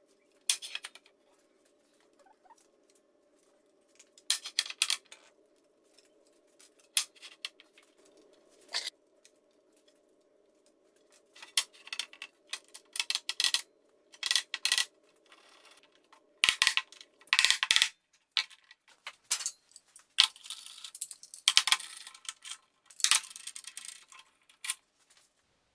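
Irregular clicks, taps and short scrapes of hand tools working wood, coming in separate bursts that grow busier in the second half. A faint steady hum underneath stops about two-thirds of the way through.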